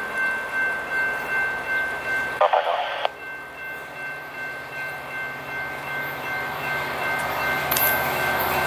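Grade-crossing bells ringing steadily while a passenger train approaches, its rumble building toward the end. A brief loud burst cuts in about two and a half seconds in.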